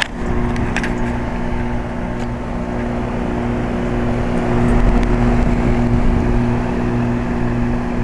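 Lennox Elite Series HP26 heat pump outdoor unit running, its Copeland scroll compressor and condenser fan making a steady hum over a constant whoosh of moving air.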